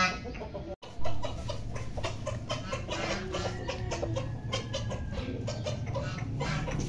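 Chickens clucking, with many short sharp clicks in between. The sound drops out briefly just under a second in before the clucking carries on.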